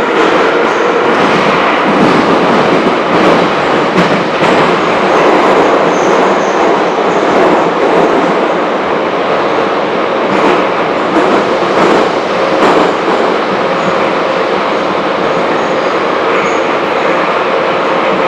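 Moscow Metro Ezh3 track-recording car running through a tunnel: a steady loud rumble of steel wheels on rail with a faint steady hum, broken by scattered sharp clicks of the wheels passing over rail joints.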